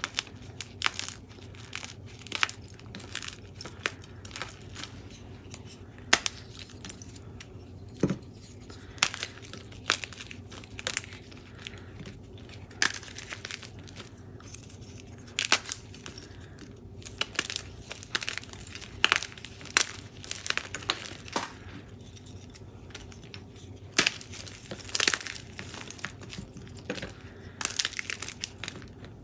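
Blocks of blue-dyed CAP gym chalk being crushed and crumbled by hand: an irregular run of dry, crisp crunches and cracks, several per second, with a few sharper snaps standing out.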